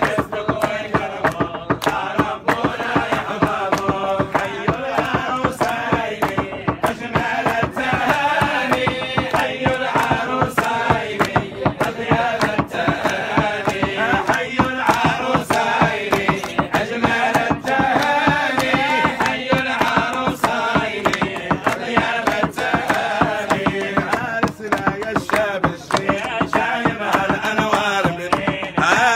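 Men's voices chanting a wedding song (nasheed) over a steady beat of sharp percussive hits.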